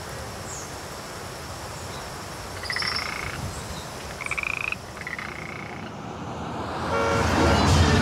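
Frog calling in a cloud forest: three short pulsed calls, about a second apart, over steady forest background noise. Music swells in near the end.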